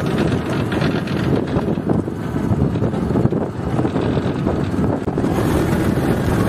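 Tractor engine running steadily, with wind rumbling across the microphone.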